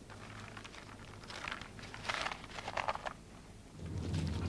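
Crinkling and rustling of food packaging as the food is handled, in a few short bursts. Near the end this gives way to badgers munching and crunching scraps against a low steady hum.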